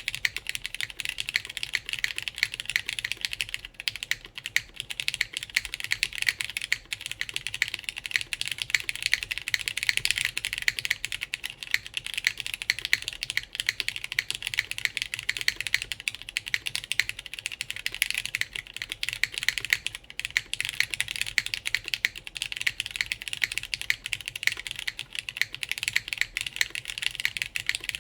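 Continuous fast typing on a custom mechanical keyboard with lubed linear Cherry MX Black switches, mounted plateless on the PCB and fitted with GMK keycaps: a steady stream of keystrokes with no switch click, with a low thock under each key. The typing starts suddenly right at the start.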